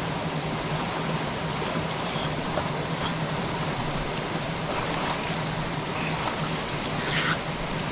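Jungle waterfall and stream rushing steadily, a constant even wash of water noise, with a brief sharper sound near the end.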